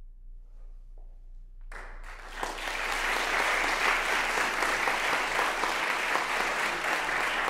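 A brief quiet pause, then an audience starts applauding about two seconds in, building quickly and then holding steady.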